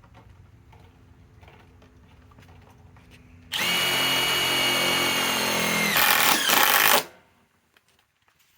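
Master Force Boost cordless impact driver driving a 1-inch #10 sheet metal screw: it starts about three and a half seconds in and runs with a steady whine, turns harsher and louder for its last second as the screw seats, then stops suddenly.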